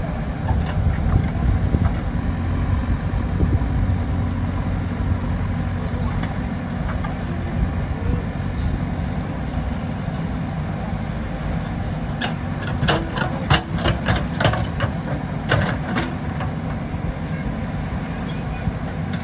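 JCB 3DX backhoe loader's diesel engine running steadily at work. In the second half comes a cluster of sharp metallic knocks and clanks.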